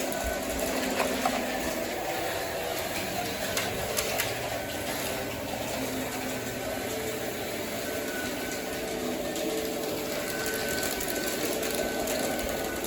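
O gauge model train running on its track: the steady whir of a small electric motor, with a few faint clicks.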